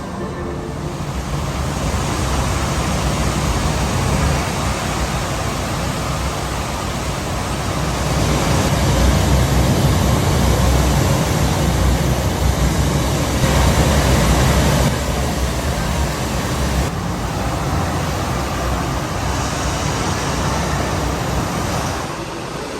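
Steady, loud rushing of a waterfall, the soundscape of an immersive waterfall installation. It swells louder through the middle stretch.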